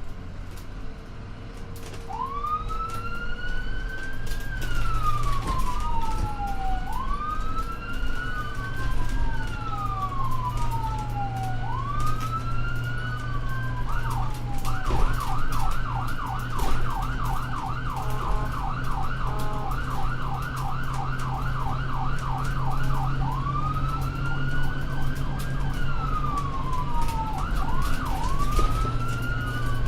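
Ambulance siren sounding. It starts about two seconds in with a slow wail that rises quickly and falls slowly, one cycle every two to three seconds. About halfway through it switches to a fast yelp of roughly three sweeps a second, then returns to the slow wail near the end, with the vehicle's engine humming steadily underneath.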